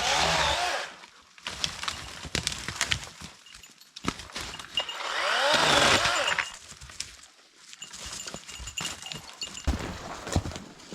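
Battery-powered electric chainsaw cutting wood in two passes, one at the start and a longer one in the middle, its motor pitch sweeping up and down under load. Scattered sharp clicks and knocks fall between the cuts.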